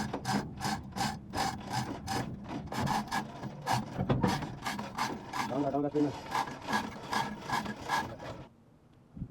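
Repeated rasping strokes of a hand tool worked back and forth, about three a second, stopping abruptly near the end.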